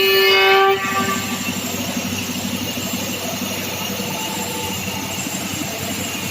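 CNC router's spindle giving a loud steady high-pitched whine that cuts off abruptly under a second in, leaving a steady lower machine noise.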